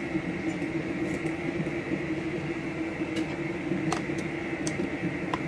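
Electric blender running steadily with a constant motor hum, with a few light clicks near the end.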